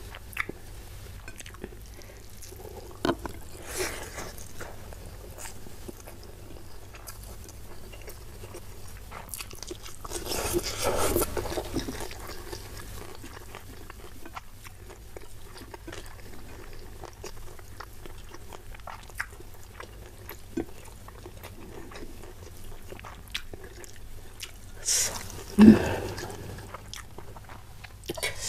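Close-miked eating sounds of someone eating rice and stir-fried salted fish by hand: chewing and small mouth sounds with scattered light clicks. There is a longer rustling stretch about ten seconds in, and two brief louder sounds near the end.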